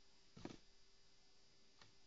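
Near silence: faint room tone with a soft knock about half a second in and a fainter click near the end.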